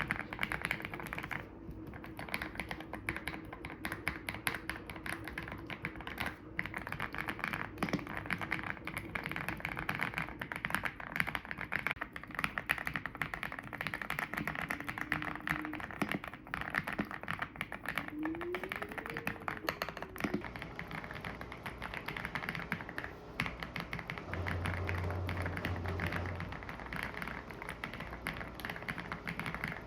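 Typing test on a YUNZII C98 mechanical keyboard: fast, uneven key clicks throughout, over faint background music.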